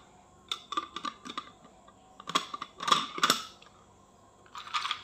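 Plastic lid being twisted shut on a plastic snack jar filled with coated peanuts: a run of light plastic clicks and scrapes, loudest a little after halfway.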